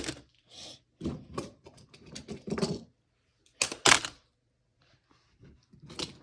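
Plastic magnetic building tiles and small hard objects clicking and clattering in irregular clusters as they are handled and put into the tile tower, loudest about four seconds in.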